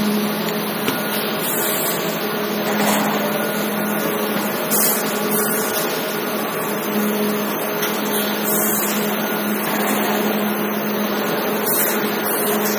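Clay brick production line machinery running: a steady mechanical hum with a constant low drone, from the conveyors and cutting equipment.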